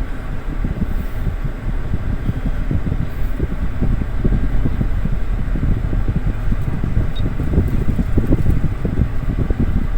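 A vehicle's road rumble mixed with wind buffeting the microphone while driving, a loud, uneven low rumble.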